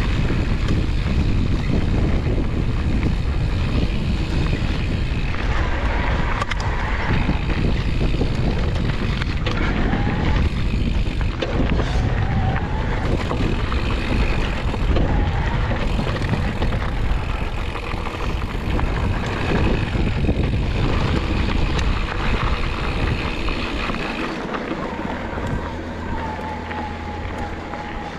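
Riding an electric mountain bike on a dirt trail: wind on the microphone and tyres running over dirt, with a faint motor whine that rises and falls in pitch. It turns quieter and steadier near the end.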